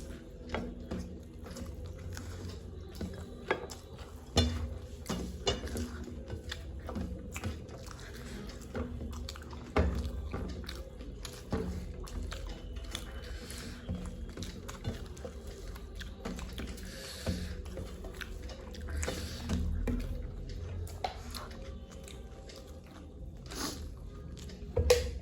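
Close-up chewing and crunching of puffed rice (muri) and fried snacks, with irregular crisp crunches and small clicks and a few louder snaps.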